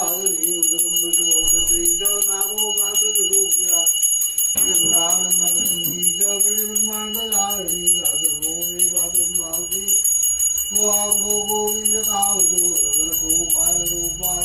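A small brass puja hand bell rung rapidly and without a break during Hindu home worship. Over it a voice sings a devotional hymn in long held lines with short pauses between them.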